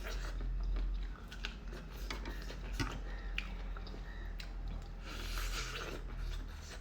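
A person chewing a mouthful of spicy noodles with corn, with small wet clicks and crunches.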